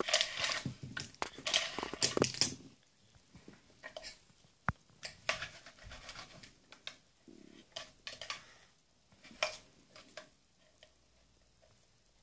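Plastic cookie cutters clattering and clicking as they are moved about on a plastic board, then fainter scattered taps and knocks as a plastic rolling pin works Play-Doh on the board.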